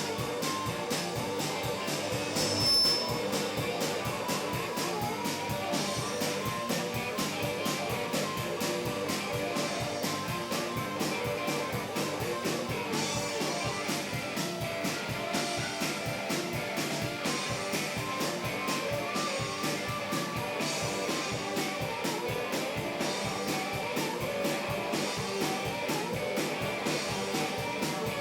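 Hill-country blues band playing a song with electric guitar over a steady, fast drum beat.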